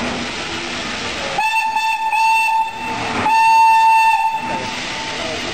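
Steam locomotive whistle blowing two long blasts with a short break between them, the second louder. Steady background noise runs beneath.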